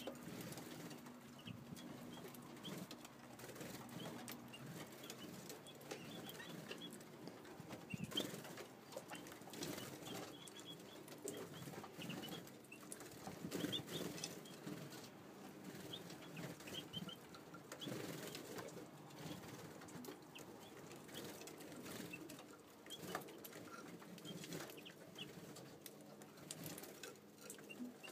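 British bullfinches fluttering and hopping on and off a hand while feeding, with short, soft, faint calls and small clicks scattered throughout. A faint steady low hum runs underneath.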